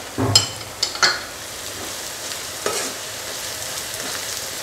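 A spiced onion masala sizzling in a nonstick frying pan as a spatula stirs it. A few sharp knocks and scrapes of the spatula against the pan come in the first second, and one more comes a little past halfway.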